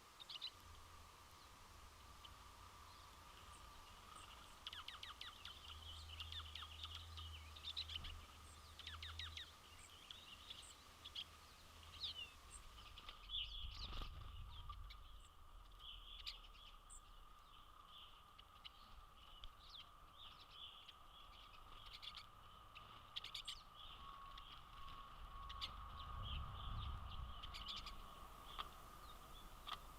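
Birds calling with many short, high chirps, scattered irregularly and faint.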